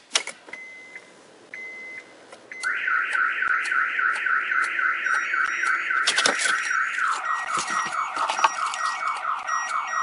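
Aftermarket Audiovox Prestige car alarm siren going off in a multi-tone cycle. About three seconds in, a fast repeating rising chirp starts, and it switches to a repeating falling sweep about seven seconds in. A few short beeps and clicks come before the siren starts.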